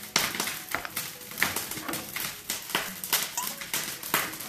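Hands rubbing and patting olive oil into raw lamb leg steaks on a wooden board: an irregular run of short, soft slaps and smacks, several a second.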